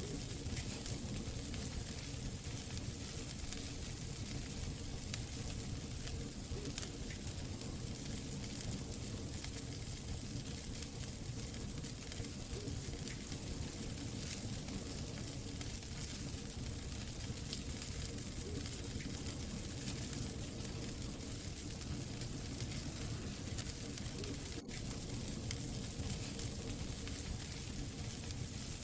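Wood fire burning in a fireplace: a steady hiss and low rumble of flames with frequent small crackles and pops from the logs. The sound briefly drops out about 25 seconds in.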